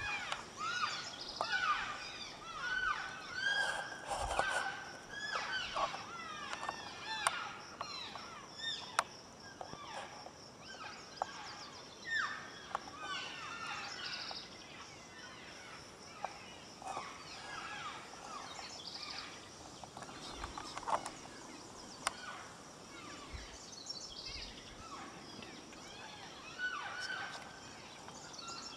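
A herd of elk cows and calves chirping and mewing to one another: many short, high, arching calls that overlap, thickest in the first half and thinning out later, with a few sharp snaps.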